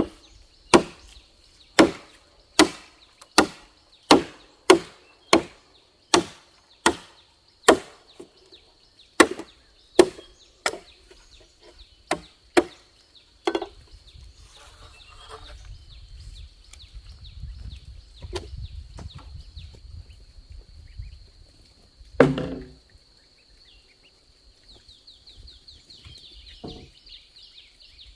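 Bamboo being chopped with a blade: a fast, steady run of sharp blows, about one and a half a second, for the first ten seconds or so, then a few slower strokes and one heavier blow later on.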